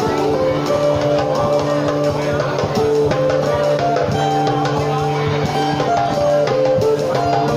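Live instrumental music from a small band: a guitar playing a stepping single-note melody over a held bass note, with a drum kit keeping time.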